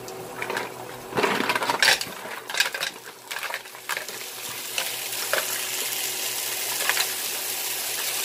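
Mussels tumbling from a plastic bowl into a hot stainless-steel skillet, their shells clattering against the pan and each other. A steady sizzle then builds as they are stirred into the frying onion, garlic and ginger with a wooden spoon, shells knocking now and then.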